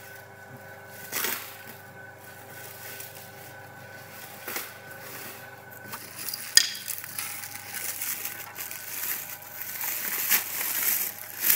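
Plastic bubble wrap crinkling and rustling as packed parts are handled, with a sharp click about six and a half seconds in and denser crackling near the end, over a faint steady hum.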